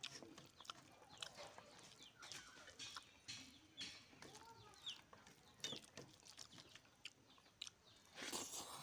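Hens clucking softly in short calls, with faint small clicks of rice being mixed by hand on a steel plate. A brief louder eating noise comes near the end as a mouthful is taken.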